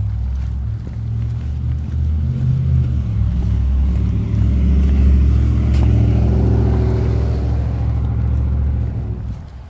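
A motor vehicle's engine passing along the street close by. Its low running note grows louder to a peak about halfway through, then fades and drops away near the end.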